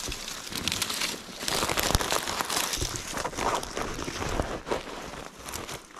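Handfuls of dry grass rustling and crackling as they are pulled up and gathered by hand, with many small irregular snaps.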